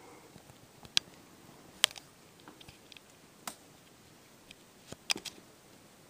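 Handling noise from a handheld camera: a few sharp clicks and ticks, one about a second in, one near two seconds, one mid-way and a quick cluster near the end, over a faint steady hiss.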